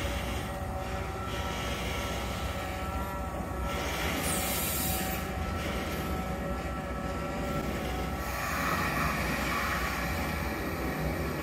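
Vossloh G 1700BB diesel locomotive's engine running steadily as it hauls a ballast train slowly past, with the low rumble of the wagons rolling on the track. A short high hiss comes about four seconds in.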